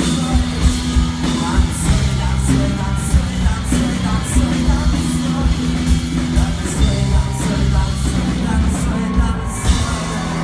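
Rock band playing live through a concert PA: drums keeping a steady beat, bass, electric and acoustic guitars, with a singer. The drums and cymbals stop about a second before the end as the song finishes.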